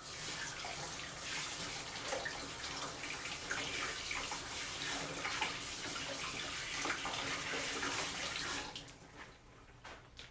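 Kitchen tap running while hands are washed under it, the water splashing; the tap is turned off near the end.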